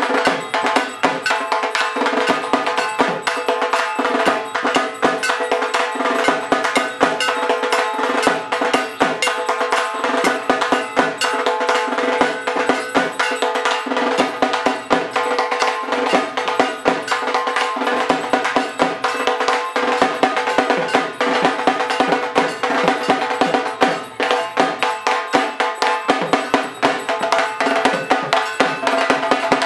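Two dhaks, large Bengali barrel drums, beaten with thin sticks in a fast, continuous puja rhythm of dense rapid strokes. A steady ringing tone runs under the strokes.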